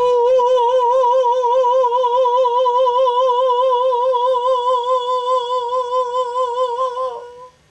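A single voice holding one long sung note with a steady vibrato. It stops about seven seconds in.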